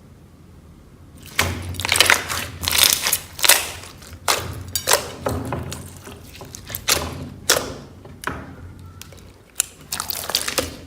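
Hands squishing, poking and stretching slime, starting about a second and a half in: a run of sharp wet crackles and pops, some in quick clusters.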